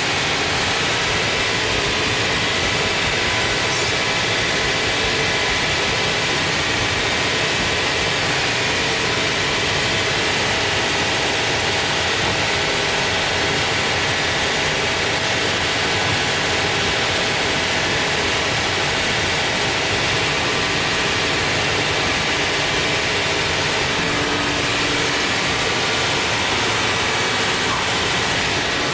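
Sawmill machinery running steadily: a loud, even mechanical noise with faint steady tones and no breaks or changes.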